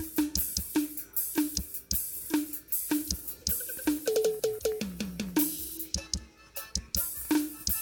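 Acoustic drum kit played in a steady beat of snare and bass drum under hissing cymbals. About four seconds in, a fill runs down the toms from high to low, then there is a short break before the beat picks up again near the end.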